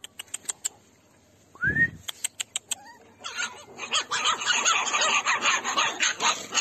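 A litter of puppies yelping and squeaking together: a dense chatter of many short, high, overlapping calls that starts about three seconds in. Before it come a few sharp clicks and one short rising squeal.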